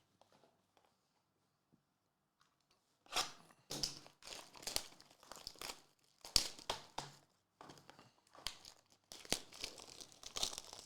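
Trading-card pack wrapping being torn open and crinkled in short, irregular bursts, starting about three seconds in after a near-silent start.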